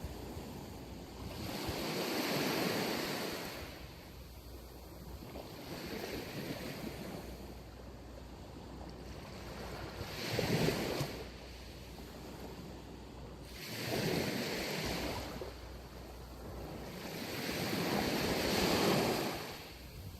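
Sea waves breaking on a sandy beach. The surf swells and falls back in several surges a few seconds apart, with the sharpest break about halfway through.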